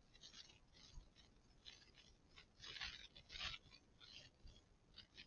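Near silence, with faint scratchy rustles now and then, a little stronger about three seconds in.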